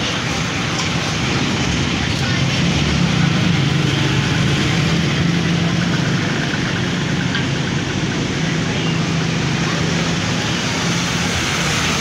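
A steady low mechanical hum over constant background noise.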